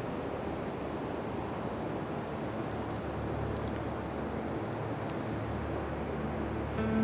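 Ocean surf breaking and washing up a beach: a steady hiss of water, with a deeper rumble joining about halfway through. Held musical notes come in at the very end.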